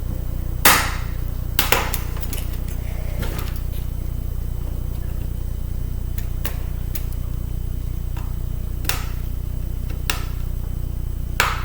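Sharp clicks and taps of a small screwdriver and metal parts being worked while taking apart a laptop CD drive, about seven scattered through, the loudest near the start, over a steady low hum.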